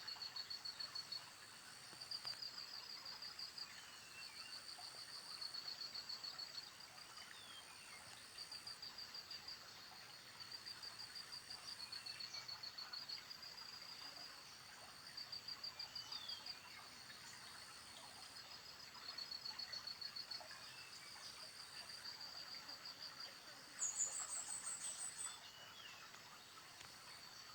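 Outdoor insect and bird chorus: a high pulsed trill repeats in bursts of a second or so, with faint scattered bird chirps between. A louder, higher trill comes near the end.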